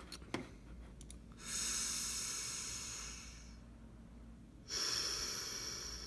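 A few small clicks at the start, then a person breathing out twice in long, hissy exhales, the first lasting about two seconds and the second starting just under five seconds in.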